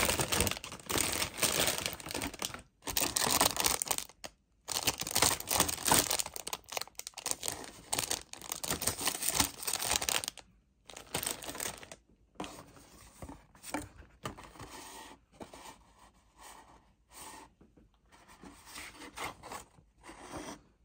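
Clear plastic bags holding model-kit runners crinkling and rustling as they are handled, loud for about the first ten seconds with two brief pauses, then quieter and in short spells.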